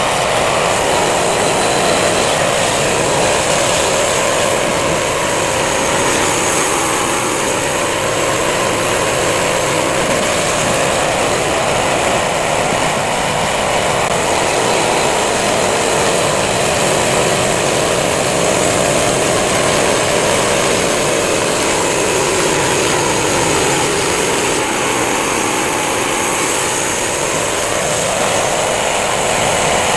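Home-built Crosswood Model #28 band sawmill running, its engine and band blade making a loud, steady drone. The pitch sags and recovers slowly twice.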